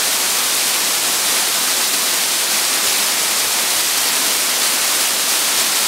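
Waterfall pouring steadily down an ice-walled, partly frozen fall, heard as an even, unbroken rushing hiss.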